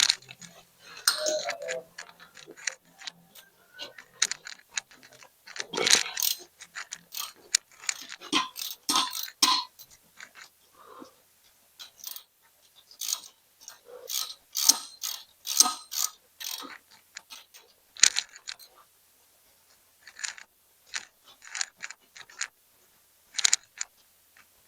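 Irregular metallic clicks, clanks and light knocks of hand tools and parts at work on a John Deere tractor transmission during its teardown, some in quick clusters of clicks.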